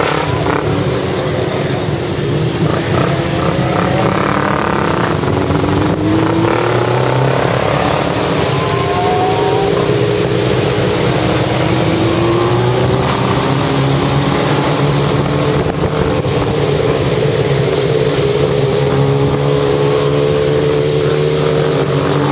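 Motorcycle engines running while riding along in a group, under heavy wind rush on the microphone; the engine pitch climbs gradually a couple of times as the bikes speed up.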